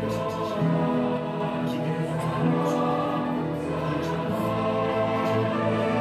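Slow background music of long-held chords, played from the presentation over the room's speakers, with a change of chord twice.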